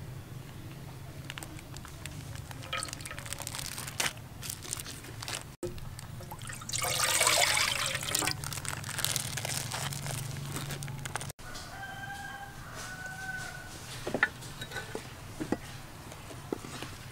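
Milky liquid squeezed from a cloth and poured into an aluminium cooking pot, splashing loudest for about a second and a half some seven seconds in. A rooster crows briefly about twelve seconds in.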